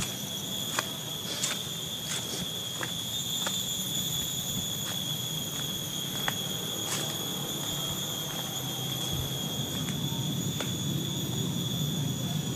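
Steady high-pitched insect buzzing in forest, unbroken throughout. Over it come irregular footsteps and sharp clicks from someone walking on a dirt trail.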